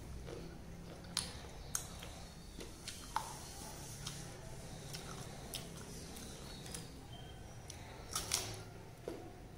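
Crunching and chewing of raw green mango dipped in chilli powder: scattered sharp clicks, with the loudest crunches as a slice is bitten about eight seconds in.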